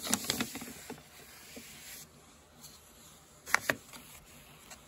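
Light clicks and taps from handling things at the workbench: a scatter of small clicks in the first second and a sharper pair of clicks about three and a half seconds in, over faint background hiss.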